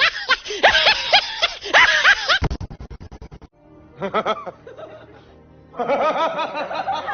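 Meme sound-effect clips: a burst of high-pitched snickering laughter, then about a second of rapid low thumps, a short pitched sound, and another burst of laughter near the end.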